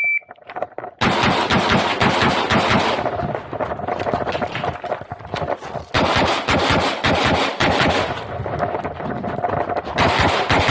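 A shot timer beeps once, then a Glock pistol fires fast strings of shots about a second later, coming in loud runs with quieter stretches between.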